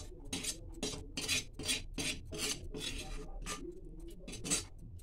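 Metal slotted spoon scraping against the inside of a metal kadhai (Indian wok) in about ten short rasping strokes, roughly two a second, as soft khoya is scraped out of the pan.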